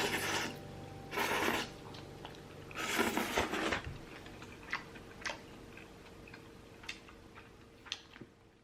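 Background music fading out, with two short bursts of noise about one and three seconds in, followed by a few faint, sparse light clicks.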